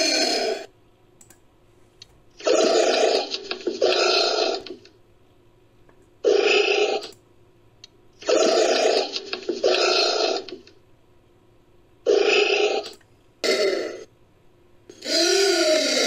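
Recorded anteater calls used as a creature sound effect for Eurotamandua: about eight short calls, each from under half a second to about a second and a half long, separated by gaps of one to two seconds. A few of them, the last one included, arch up and then down in pitch.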